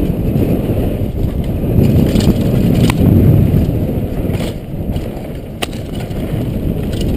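Mountain bike descending a dusty downhill trail: a steady, loud rumble of knobby tyres over dirt and rocks mixed with wind on the helmet camera's microphone, with two sharp knocks from the bike over bumps.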